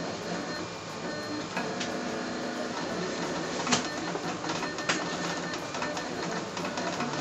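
Vinyl cutting plotter cutting black sticker vinyl, its motors running with shifting tones as the carriage and roller drive the blade through the design. Two sharp clicks come in the middle, a little over a second apart.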